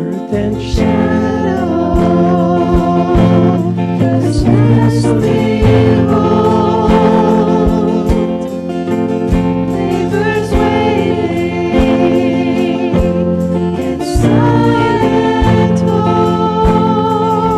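Church worship band and singers performing a Christmas worship song: voices singing with vibrato over guitar and accompaniment, with a steady beat about once a second.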